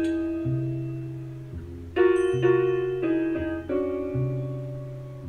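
Jazz piano music playing from a vinyl record on a Beogram 4000 turntable: piano chords struck every second or so over a walking bass line.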